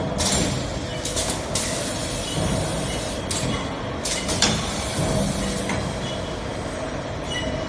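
Six-station oil filter tapping machine running: repeated short hisses of compressed air from its pneumatic cylinders and valves over a steady machine hum, with a sharp clack about four and a half seconds in.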